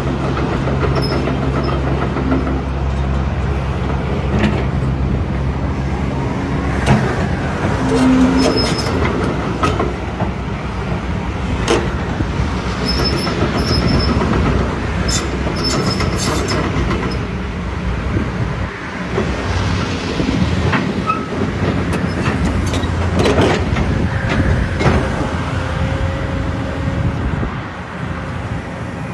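Heavy diesel excavator working: the engine runs steadily for the first several seconds, then the sound turns into repeated metallic clanks and knocks with short high squeals of steel on steel from the moving machine.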